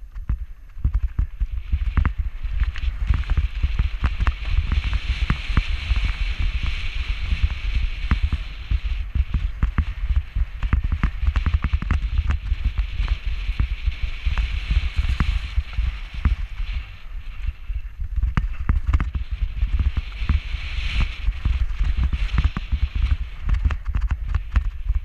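Mountain bike clattering over a rocky, stony trail: dense irregular knocks and rattles from the bike and tyres on the rocks, over a constant low wind rumble on the handlebar camera's microphone.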